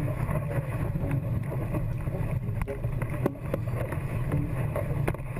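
Steady low rumble of wind buffeting and breaking surf on the microphone of a camera fixed to a sit-on-top kayak riding through waves.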